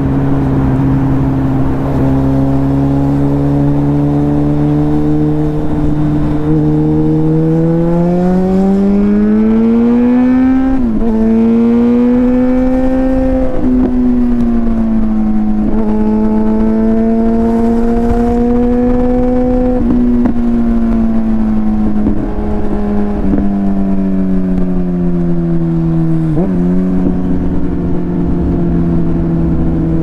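Suzuki GSX-R1000's inline-four engine under way, its revs climbing for several seconds and then dropping sharply at a gear change about eleven seconds in, with a few more quick gear changes later on. A low wind rumble runs underneath.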